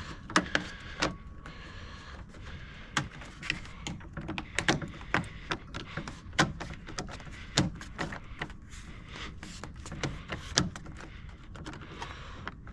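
Plastic door trim being pushed into place and handled on a Jeep door, giving irregular sharp clicks and knocks, a few every second or two.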